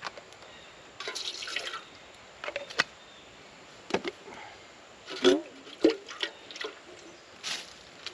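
Boiled acorns being rinsed with clean water: a short pour and splashing about a second in, then scattered drips, splashes and irregular knocks of the nuts and their container as they are handled.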